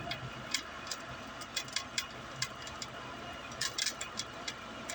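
Window air conditioner running with excess water pooled in the front of the unit, the spinning fan striking the water and making an irregular clicking rattle over the steady motor hum.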